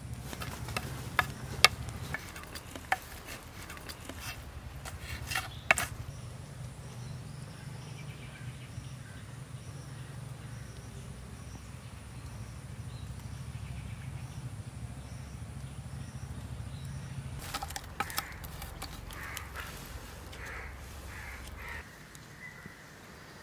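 Scattered sharp clicks and wooden knocks, bunched in the first six seconds and again near the end, over a steady low rumble. Faint high chirps repeat about once a second behind them.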